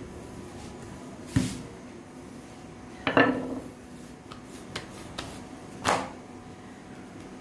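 A few knocks of a wooden rolling pin and hands on a worktop as whole-wheat dough is rolled out and then pressed flat by hand. The loudest knock, about three seconds in, comes as the rolling pin is set down on the counter.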